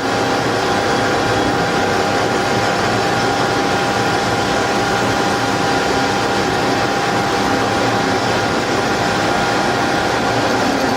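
CNC drill line running while drilling an 18 mm hole in steel angle: a steady, even machine noise with a constant whine.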